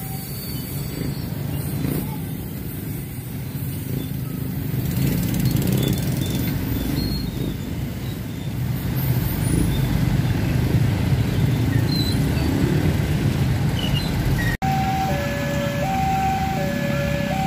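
Babaranjang coal train wagons rolling away on the rails, a steady low rumble that grows louder after about five seconds. About fourteen and a half seconds in it cuts abruptly to a railway level-crossing warning alarm: an electronic signal alternating between a high and a low tone, each lasting a little over half a second.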